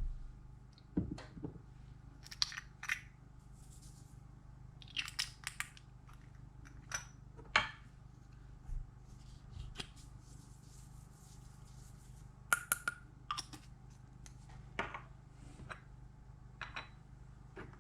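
Snow slime being squished and kneaded by hand, giving scattered sharp crackles and pops at irregular intervals, some in quick clusters, over a low steady hum.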